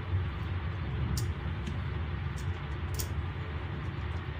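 A few faint light clicks of a hand tool on the metal parts of an opened inverter welding machine, over a steady low background rumble.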